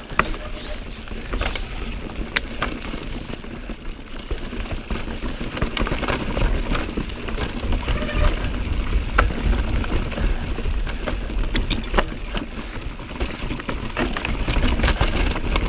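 Mountain bike rolling over rocky, chunky singletrack: a steady low rumble from the knobby tyres on rock, with frequent sharp clicks, knocks and rattles from the bike.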